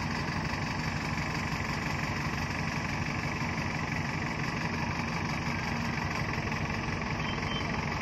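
Backhoe loader's diesel engine running steadily while its backhoe arm is worked.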